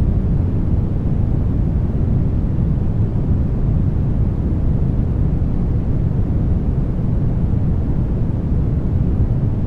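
Brown noise: a steady, deep, rumbling hiss with most of its weight in the lows, unchanging throughout.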